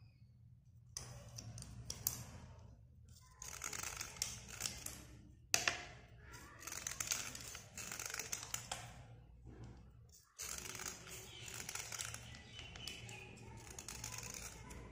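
A utility-knife blade scraping along a slate pencil, a dry gritty rasp in several passes with short pauses between, and one sharp click about five and a half seconds in.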